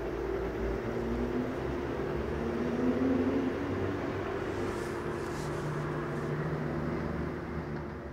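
Steady rumble and engine drone of a passenger train behind a PL42AC diesel locomotive moving away down the line. It grows a little quieter near the end.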